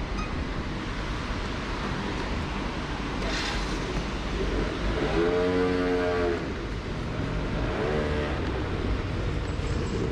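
Small scooter engine running under a low wind rumble on the microphone, its pitched note swelling twice as the scooter pulls away, about five and eight seconds in.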